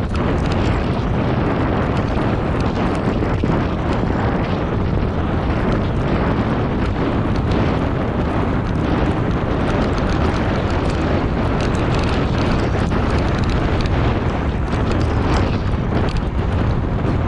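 Steady, loud wind buffeting on the microphone of a bike rolling fast along a dirt trail, mixed with the rumble of the tyres and small scattered rattles.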